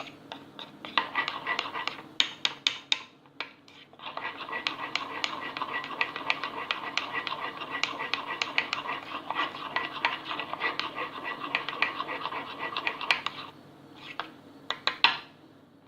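A spoon stirring thick cake batter in a ceramic mug: fast, rhythmic scraping with quick clinks against the mug's sides. It pauses briefly twice, with a few louder clinks near the end.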